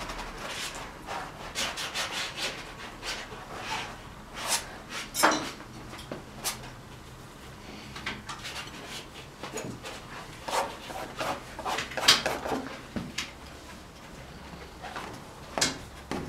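Brush strokes scraping and rubbing across a stretched oil-painting canvas, as a series of short, irregular strokes with a few sharper, louder ones.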